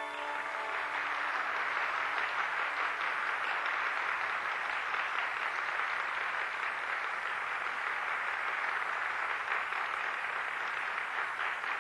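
Audience applauding steadily, a dense, even clapping that follows the end of a santour piece.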